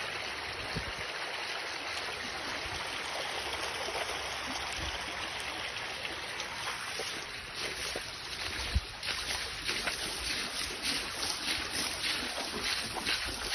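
Muddy floodwater rushing over a paved road: a steady wash of water noise. From about eight seconds in, uneven thumps and crackles join it.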